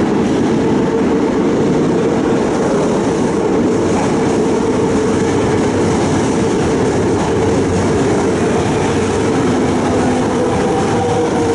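Toei 5300 series subway train running into an underground station: a loud, steady rumble and rattle of wheels on the rails. A whining tone comes in near the end.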